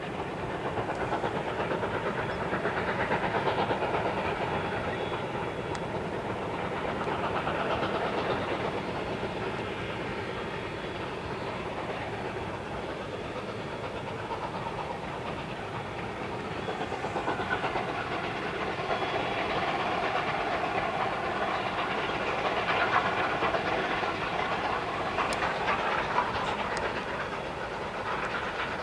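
Distant narrow-gauge steam locomotives working hard upgrade with a long freight train, their exhaust carrying as a steady dense chuffing that swells louder and fades back several times.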